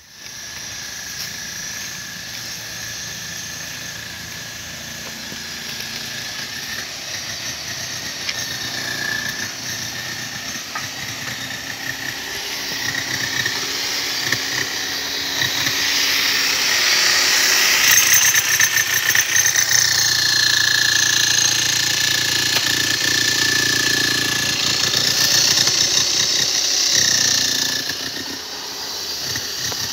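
An engine running steadily, with a thin high whine over a hiss. It grows louder about halfway through and eases off near the end.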